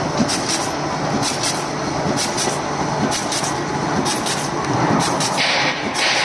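Automatic rotary slotter for corrugated cardboard running, its rollers and slotting knives feeding and cutting sheets: a steady mechanical rumble with repeated sharp clacks, roughly one or two a second. A harsher hiss comes in near the end.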